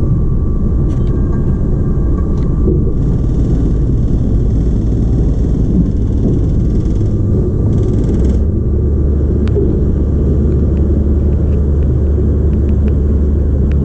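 Cruise ship lifeboat's diesel engine running steadily under way, heard from aboard, with water rushing past the hull. The engine's low hum grows stronger about eight and a half seconds in.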